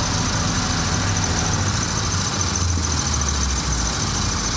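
An engine idling steadily, a low hum whose pitch shifts slightly about three seconds in, with a thin steady high whine over it.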